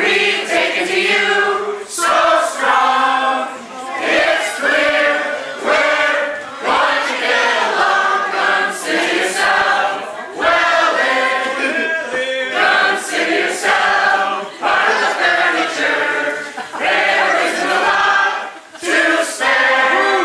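A mixed group of men, women and children singing a song together, like a congregation, in phrases with short breaths between them.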